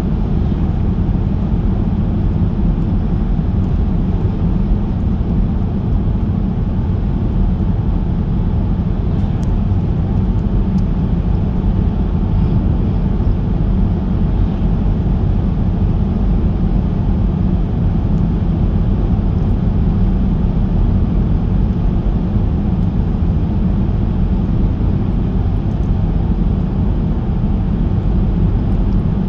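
Car driving on asphalt, heard from inside the cabin: a steady low rumble of tyres and road noise that holds even throughout.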